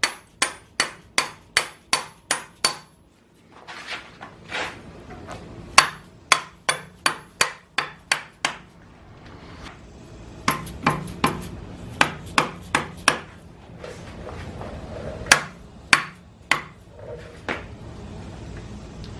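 A hammer tapping on metal: sharp ringing blows about two to three a second in several runs, with short pauses between runs, while the power steering bracket is worked into place on the engine.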